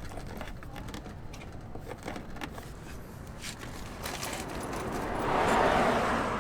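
Small metal hardware (washers and nuts) being handled and threaded onto a mud-flap mounting bolt, giving light scattered clicks and jingles. Near the end a rushing noise swells up and fades, louder than the clicks.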